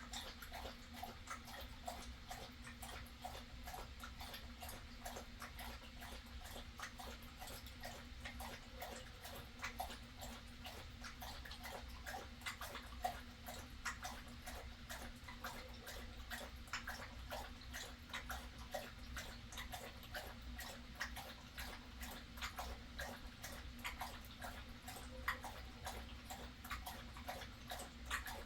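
A neighbouring dog barking over and over, faint, in quick irregular bursts, over a steady low hum.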